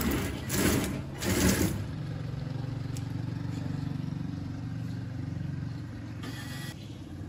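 Homemade Wall-E robot's drive and metal crawler tracks running as it rolls forward: a steady low hum with rapid rattling. Short loud rushes of noise come about half a second and a second and a half in, and again near the end.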